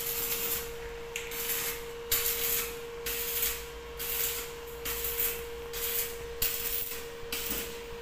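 Electric arc welding on a steel frame: the arc crackles and hisses in runs of about a second, stopping and restarting many times, over a steady hum.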